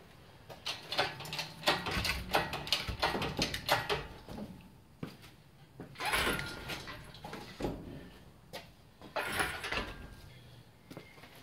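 Clicks, knocks and scraping from a workshop engine hoist and its chain as a Toyota Starlet engine with gearbox attached is moved and lowered. A quick run of small knocks fills the first few seconds, then come two longer scraping rushes, about six and about nine seconds in.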